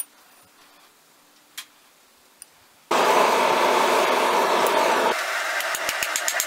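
Quiet with a couple of faint clicks, then about three seconds in the steady rushing noise of a forge fire starts suddenly. Near the end a hand hammer starts striking red-hot steel on an anvil in quick, even blows, several a second, over a steady background noise.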